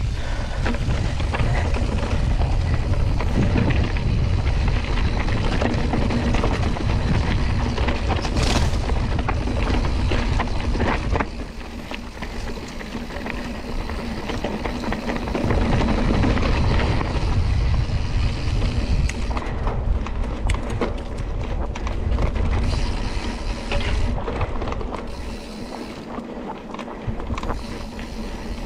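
Wind buffeting the microphone while a mountain bike rattles over a rough dirt trail at speed, with scattered clicks and knocks from the bike. The wind noise eases about eleven seconds in and again near the end.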